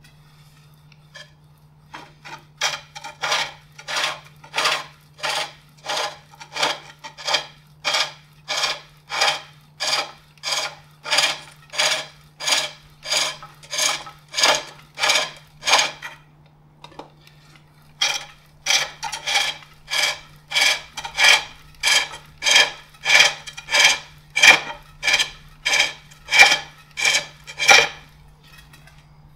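Hook tool cutting the inside of a wooden bowl on a foot-powered pole lathe: a rasping scrape on each down-stroke of the treadle, about one and a half strokes a second, with a pause of about two seconds midway. These are light cuts cleaning up the hollow of the bowl. A steady low hum runs underneath.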